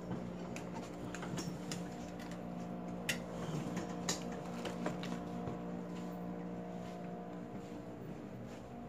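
Steady low mechanical hum, with scattered light clicks and knocks over it, the clearest about three and four seconds in.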